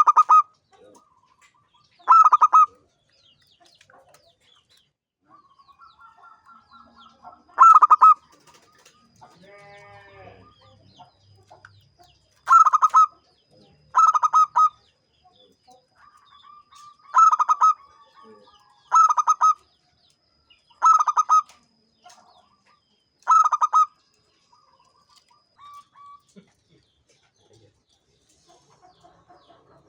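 Zebra dove (perkutut) cooing: about nine short, loud bursts, each a quick rattle of notes, spaced a second to several seconds apart, with softer trilling notes between them.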